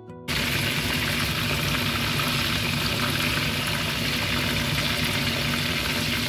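Chicken breast pieces shallow-frying in hot oil in a frying pan: a steady, dense sizzle that starts abruptly just after the beginning.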